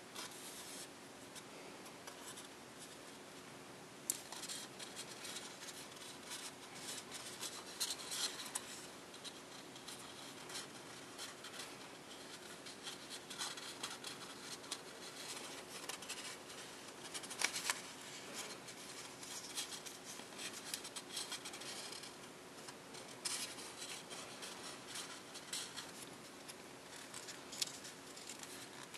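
Printed copy paper, an enlarged dollar-bill print, crinkling and rubbing as fingers crease and shape origami folds by hand. It comes in irregular bursts with a few sharper crackles, the loudest about 17 seconds in.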